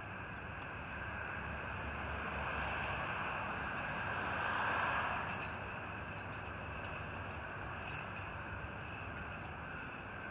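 LiftMaster gate operator running as a 20-foot steel sliding gate rolls closed: a steady mechanical hum with a low rumble, and a broad rushing noise that swells and fades about halfway through.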